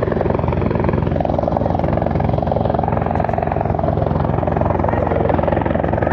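Helicopter coming in low toward a landing pad. Its rotor chops fast and evenly over a steady low drone.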